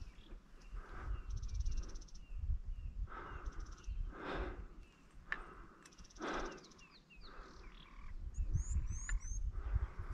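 Quiet savanna bush ambience: small birds chirping and trilling, with a quick run of high falling notes near the end. A few short rushes of breath-like noise and a low rumble on the microphone run underneath.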